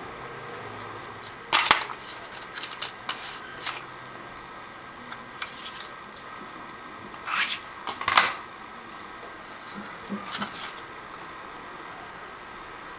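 Paper, cardboard and plastic packaging handled as phone accessories are taken out of their box: a handful of short, sharp rustles and taps with quieter stretches between them.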